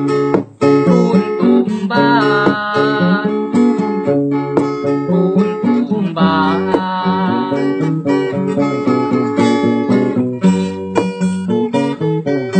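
Acoustic guitar strummed in steady chords, with a man singing along in short phrases over it.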